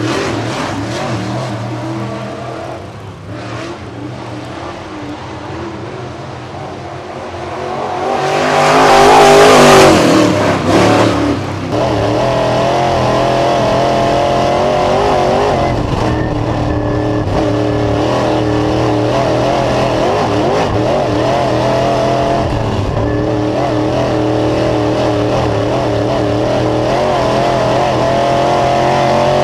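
Dirt late model race car with a Chevrolet 602 crate V8 lapping a dirt oval. At first it is heard from trackside and passes loudly about nine seconds in; then it is heard from inside the car, with the engine running hard and its pitch rising and falling through the laps.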